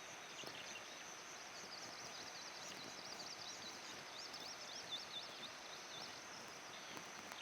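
Little grebe giving its trill: a rapid, wavering run of high notes, starting about a second and a half in and lasting about four seconds, over a steady background hiss.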